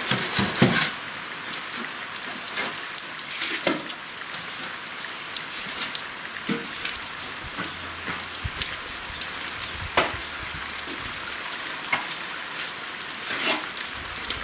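Heavy rain pouring down, a steady dense hiss with scattered sharper drop impacts.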